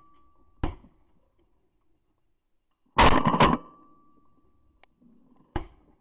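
A short knock about half a second in, then a loud, dense burst of noise lasting about half a second about three seconds in, followed by a faint steady tone for a second or so, and another short knock near the end.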